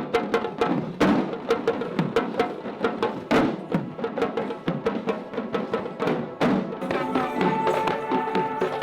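Music led by fast, rhythmic drumming, several strokes a second. About seven seconds in, a wind instrument joins, holding a steady note over the drums.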